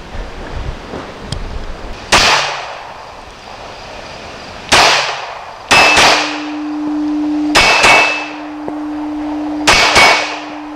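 Glock 26 9mm pistol firing: two single shots, then three quick double taps, each shot sharp with a short echo. A steady clanging ring holds under the later shots.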